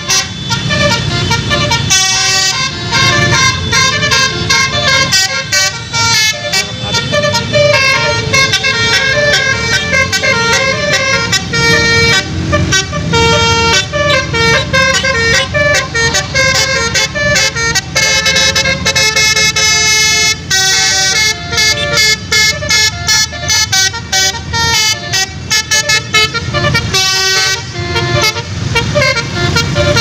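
Bus telolet horn of the Basuri multi-tone type playing a fast melody, its notes stepping quickly from one pitch to the next almost without a break, over a steady low rumble of bus and motorcycle engines.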